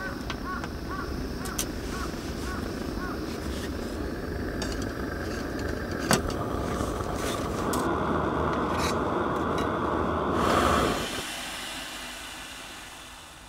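Gas canister camping stove burner running with a steady hiss. It grows louder and higher about eight seconds in, then drops away sharply about eleven seconds in as the flame is turned down at the valve. A sharp knock comes about six seconds in.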